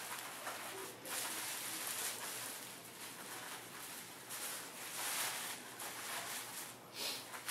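Thin plastic carrier bag rustling and crinkling as hands dig into it and pull food out, in uneven spells.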